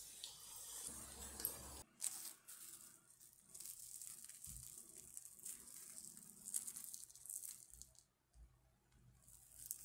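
Faint sizzling of oil in a frying pan, then, from about two seconds in, hands tearing open a crisp breadcrumbed fried tortilla triangle, with light crackling of the crust.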